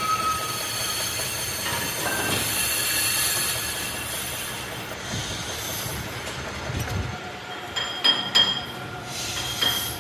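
Metal lathe turning a brake disc, the cutting tool scraping and squealing with a thin high tone as it machines the face. A few sharp metallic clinks come near the end.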